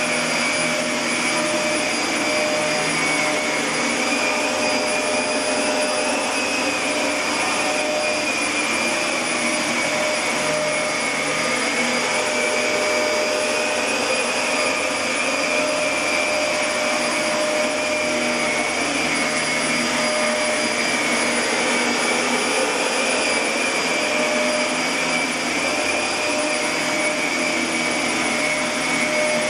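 A motor-driven machine running steadily: a constant whirring rush with a high whine that wavers slightly in pitch.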